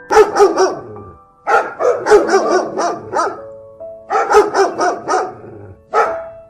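A dog barking in rapid volleys of several barks each, four volleys in all, over background music.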